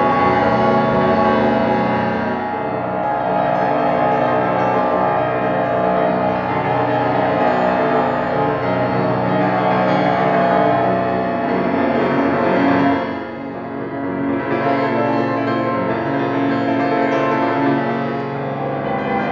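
Yamaha grand piano played with rapid repeated strokes, many notes ringing together in a dense sustained wash. It thins out briefly about two-thirds of the way through, then builds again.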